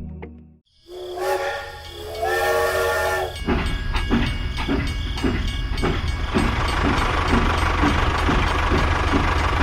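A hiss with two short whistle-like hoots, then a small motor starts running steadily with an even pulsing knock about twice a second.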